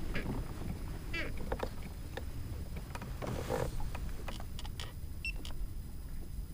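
Water and wind rumbling against a kayak and the microphone, with scattered light clicks and knocks of gear on the hull and a short rush of noise about halfway through.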